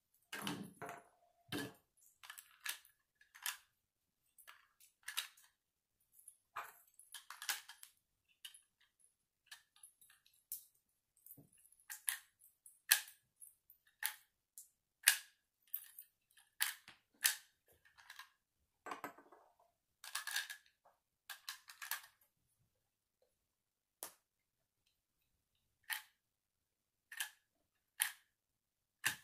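Plastic Lego bricks being pressed and snapped together by hand: irregular sharp clicks, sometimes several in quick succession, with short pauses between.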